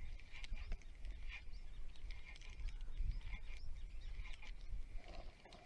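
Spinning reel being cranked to retrieve a cast lure: a light, repeated whirring with small clicks, over a low rumble on the microphone.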